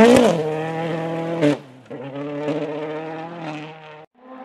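Toyota Yaris WRC rally car's turbocharged four-cylinder engine pulling away at a steady, held note and fading. There is a brief sharp burst about a second and a half in, and the sound cuts off suddenly near the end.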